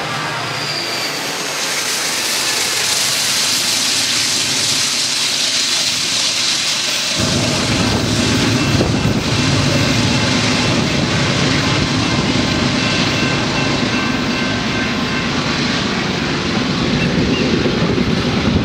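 A grain train's hopper cars rolling away over the rails as a steady hiss of wheel and rail noise. About seven seconds in, a louder, rough low rumble starts suddenly and carries on.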